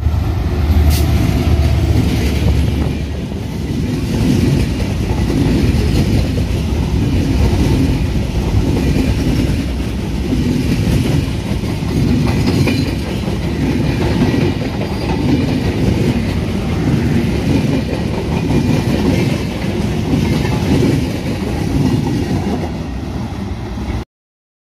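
Diesel-hauled Bangladesh Railway express passenger train passing at speed. The locomotive's low rumble is strongest in the first couple of seconds, then the coaches' wheels clatter over rail joints and points in a steady, repeating rhythm.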